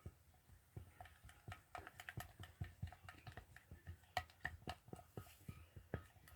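Faint, irregular clicking and tapping, several taps a second, from a utensil stirring a toothpaste slime mixture in a bowl.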